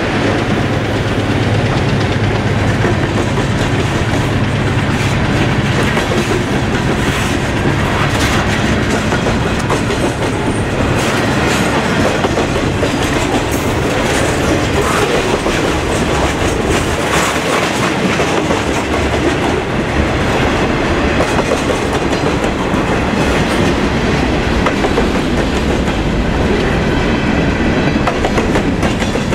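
Freight train cars rolling past close by: steady wheel and rail noise with scattered clicks of wheels over the rail joints. At the start, the diesel engine of the passing GP9 locomotive hums and fades out within about two seconds.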